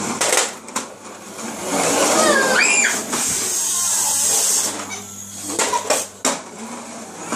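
Big plastic toy trucks pushed along a wooden floor: a long rattling run of the wheels, with scattered clacks and knocks of hard plastic.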